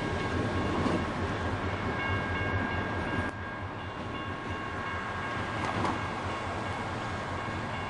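EMD SW1200 switcher's diesel engine running as the locomotive and its caboose roll away over a grade crossing. Steady high ringing tones sound alongside, and the sound drops a little about three seconds in.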